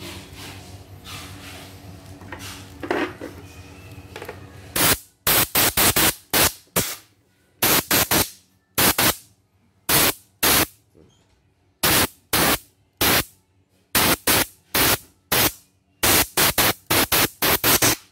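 Compressed-air blow gun blasting into an embroidery machine's carriage mechanism to clear out dust and tangled thread. It fires many short blasts in quick clusters, starting about five seconds in.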